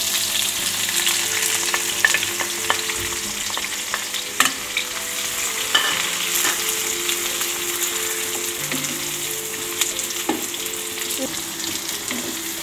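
Freshly added sliced onions sizzling in hot oil in an aluminium frying pan as a wooden spatula stirs them, with a few sharp knocks of the spatula against the pan. This is the onion stage of a tadka, frying with browned garlic, and the sizzle eases slowly as the onions settle into the oil.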